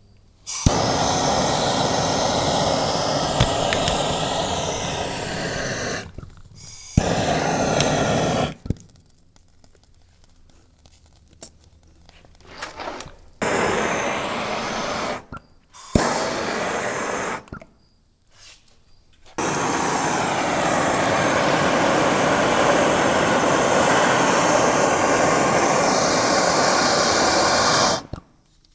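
Handheld gas torch flame hissing steadily while heating copper pipe joints for soldering. It comes in several bursts that start and stop abruptly, some opening with a sharp click, and the longest runs about eight seconds near the end.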